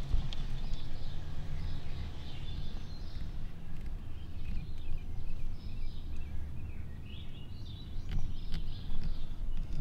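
Outdoor background noise: a steady low rumble with birds chirping faintly.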